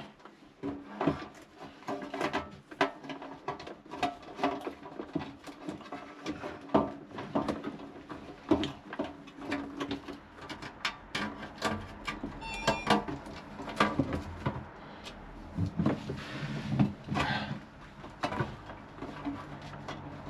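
Irregular clicks, knocks and rattles of hand work on a consumer unit, plastic covers and parts being handled and fitted, with a brief rapid ticking about thirteen seconds in.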